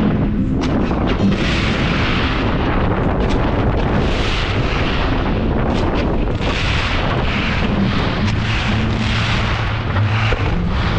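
Aerial fireworks bursting in a dense, continuous barrage of overlapping bangs and booms.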